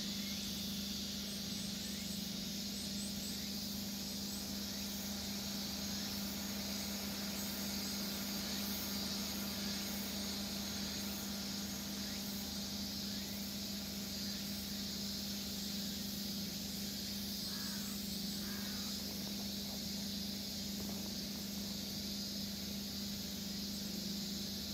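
Steady chorus of summer insects, a continuous high shrill that does not let up, over a steady low hum.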